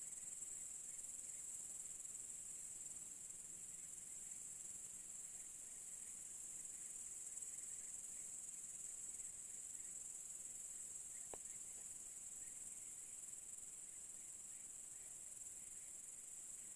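Steady high-pitched chorus of crickets trilling, with faint repeated chirps underneath and a single soft tick about eleven seconds in.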